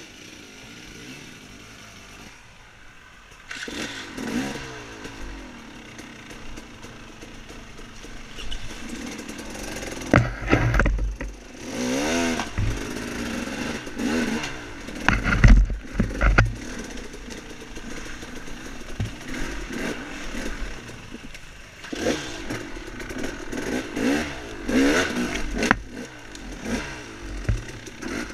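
Off-road dirt bike engine revving up and down repeatedly, after a quieter first few seconds, with several heavy knocks and clatter from the bike working over rough ground.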